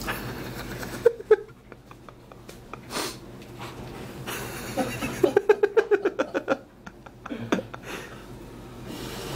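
A person's stifled laughter: a quick run of short giggles in the middle, with a few shorter laughs or breaths before and after.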